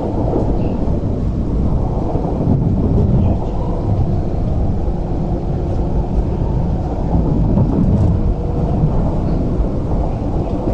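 Steady low rumble of a CRRC Changchun-built MTR TML C-train running between stations, heard inside the passenger car: wheels on rail and car-body noise.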